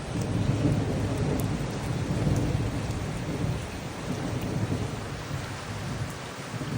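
Steady rain falling, with a continuous low rumble that rises and falls underneath it.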